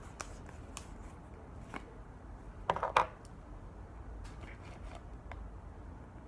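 Light clicks and taps of a plastic glue bottle and cup being handled while glue is poured in, with a louder cluster of knocks about three seconds in.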